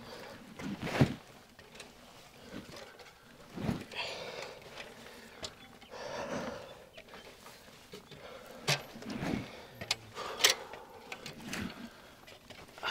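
A hiker climbing a steep aluminium ladder and rock: irregular clunks and sharp knocks of boots and gear, with short rustling scuffs between them.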